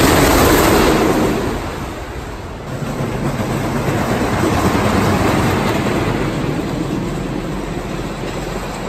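Wooden roller coaster train (Knoebels' Twister) rumbling and clattering along its track through the wooden support structure. It is loudest as the train passes close in the first second or so, dips briefly around two seconds in, then swells again and slowly fades.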